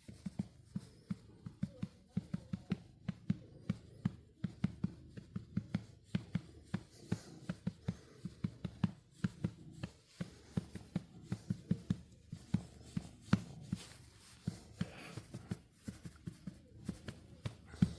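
A hand patting a cat's rump: a steady run of soft, dull pats, about three to four a second.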